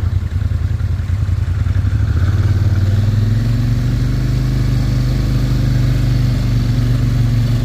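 Honda ATV engine running with a low pulsing rumble, picking up revs about two seconds in and then holding a steady drone.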